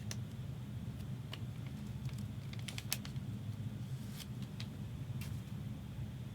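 Trading cards being handled, giving scattered light clicks and taps, with a small cluster about three seconds in, over a steady low hum.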